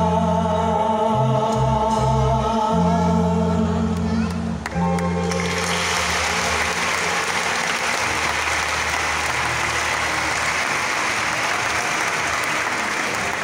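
Dance music with held, choir-like vocal chords over a bass line, which ends about five seconds in; audience applause then takes over and continues.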